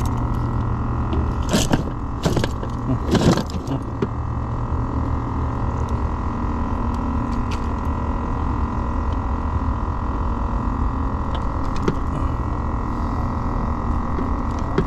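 A steady mechanical hum throughout, with three short scraping handling noises in the first few seconds as a caught fish is handled with a fish grip.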